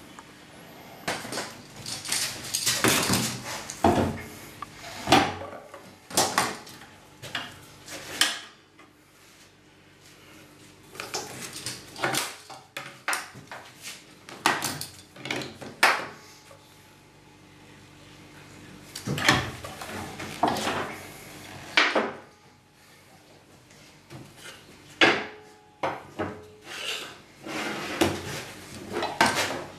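Metal parts and a heavy electric wire-rope hoist being handled on a steel workbench: irregular clunks, knocks and scrapes in several bursts with short pauses between them.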